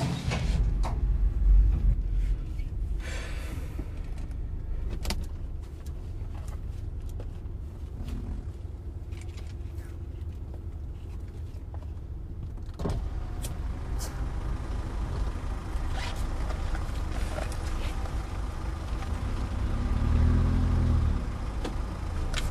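Steady low engine and road rumble heard from inside a car's cabin, with scattered clicks and knocks and a short swell in the rumble near the end.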